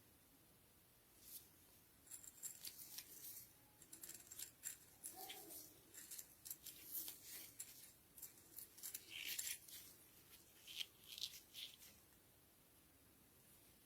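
Faint, irregular clicks and rustles of small objects being handled, starting about a second in and stopping a couple of seconds before the end.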